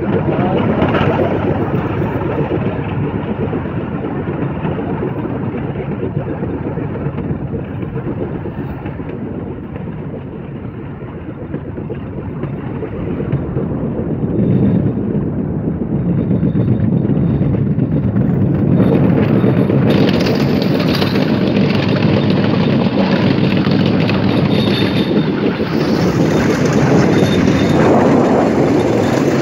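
Bamboo train running along the rails, a steady rumble of the ride that dips briefly and then grows louder about halfway through.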